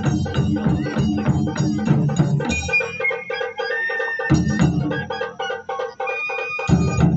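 Japanese taiko ensemble drumming: fast, dense strokes on the big drums for the first couple of seconds, then lighter rapid strokes with heavy big-drum hits about halfway and near the end. A high flute melody in held notes runs over the drums.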